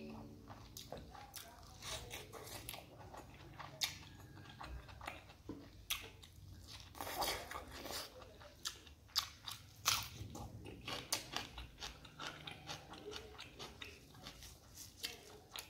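Close-miked chewing and mouth sounds of a person eating spicy mutton innards and rice by hand: irregular wet smacks and crunchy bites, some louder than others.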